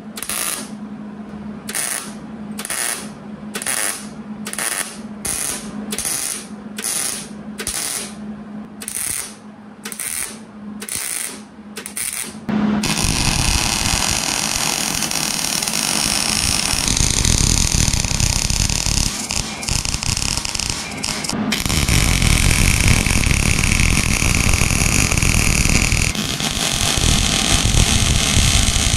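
Wire-feed (MIG) welder laying short tap-and-zap welds on a steel car subframe: a quick burst of arc crackle about every two-thirds of a second. About halfway through it changes to a continuous crackling bead, whose tone shifts a few times as the weld runs on.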